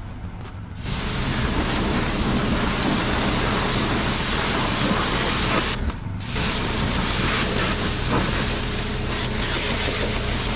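Pressure washer spray hissing against a car's front end, rinsing off all-purpose cleaner. It starts about a second in, stops briefly around six seconds, then resumes over a steady low hum.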